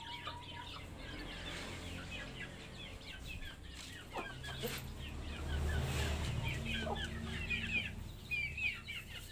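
Birds calling in many short, high chirps over a low rumble that is loudest around the middle.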